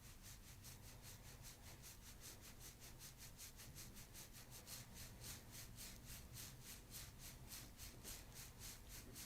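Faint, quick, rhythmic rubbing of hands over the patient's skin or clothing during soft-tissue massage of the neck, about five strokes a second, a little stronger in the second half.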